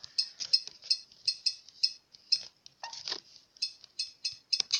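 A quick, uneven run of about twenty short, high clicks: key-press sounds from a tablet's on-screen keyboard as a search word is typed.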